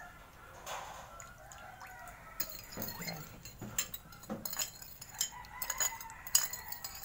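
A metal spoon clinks and scrapes against a small glass bowl while fish-sauce dipping sauce is stirred and mixed. The clinks are irregular and come quickly in the second half.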